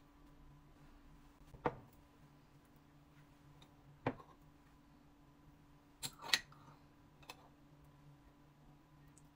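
A metal spoon and containers clinking and knocking lightly against a ceramic mixing bowl and countertop as mustard and mayonnaise are spooned in: about five short knocks a second or two apart, over a faint steady hum.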